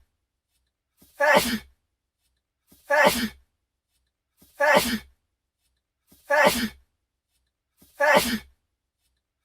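A man's sneeze, the same short sneeze repeating five times about every second and three-quarters. Each is a faint breath in followed by a sharp sneeze, with silence between.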